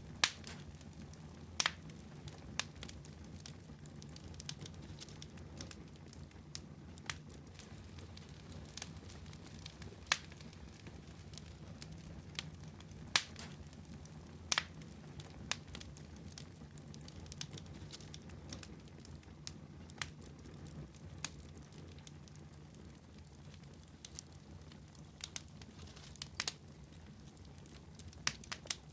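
Fire crackling in a fireplace: irregular sharp pops and snaps, a few louder ones standing out, over a steady low rumble of the flames.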